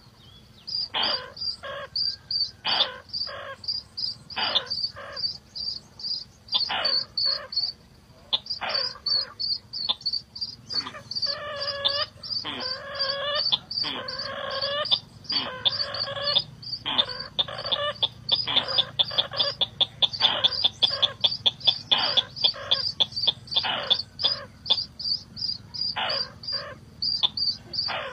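Birds calling in quick repeated sharp notes, with a run of longer, wavering calls in the middle, over a continuous high chirring of insects.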